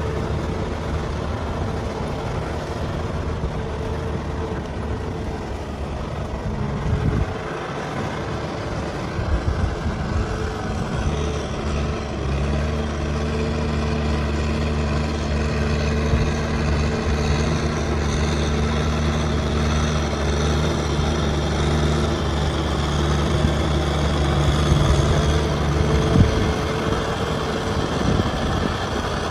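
Kubota M6040 SU tractor's diesel engine running. Its note changes about seven seconds in, runs as a strong steady hum from about twelve seconds, and drops away about three seconds before the end.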